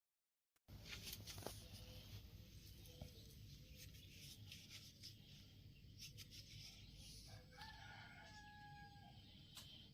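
Faint background hiss with scattered small clicks, starting suddenly after a moment of dead silence. About seven and a half seconds in comes one drawn-out call at a steady pitch, held for about a second and a half, typical of a distant rooster crowing.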